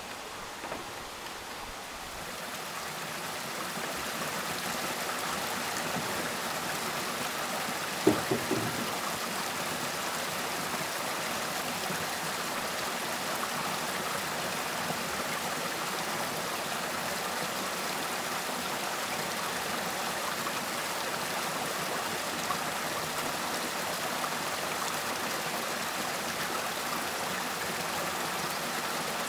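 Steady rushing of running water that swells up over the first few seconds and then holds even, with a short cluster of knocks about eight seconds in.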